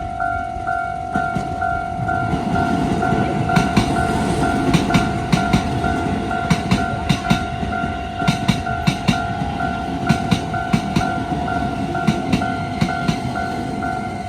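Japanese railway level-crossing alarm ringing its repeating electronic bell, several strokes a second. An electric train runs over the crossing from about two seconds in, its wheels clacking over the rail joints.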